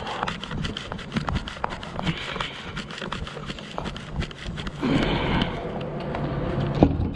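Quick footsteps on asphalt with hard breathing. Near the end there is a single sharp clunk as the cargo van's driver door is opened.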